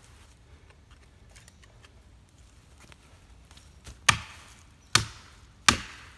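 A maul striking a felling wedge in the saw cut of an oak tree three times, sharp blows a second or less apart starting about four seconds in, driving the wedge to tip the tree and free a pinched chainsaw bar.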